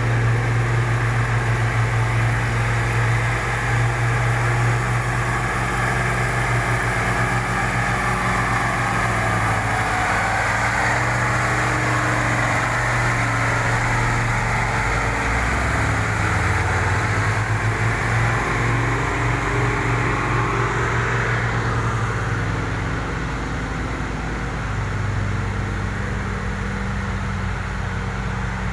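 Excavator diesel engine running steadily under load, with a dense rushing noise over it that eases off about three quarters of the way through.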